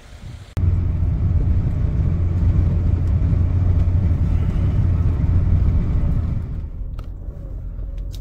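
A motor vehicle driving along the road: a steady low engine and road rumble that starts abruptly about half a second in and eases off near the end.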